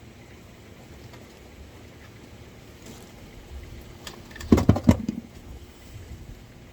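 A low rumble of wind on the microphone, with a quick cluster of four or five sharp knocks about four and a half seconds in, as of tools or parts being handled on the condenser unit.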